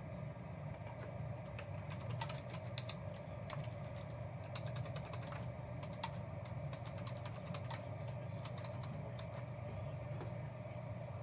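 Typing on a computer keyboard: irregular runs of key clicks, denser in the middle, over a steady low hum.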